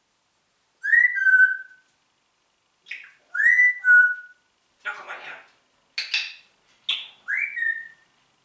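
African grey parrot whistling a two-note call, a high note dropping to a lower one, three times, with short noisy calls in between.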